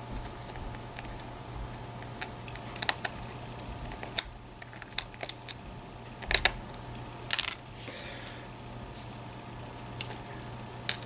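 Small metal lock parts, the sliders of a disassembled EVVA ICS lock, clicking and tapping now and then as they are picked up, set down and turned over, over a faint steady low hum.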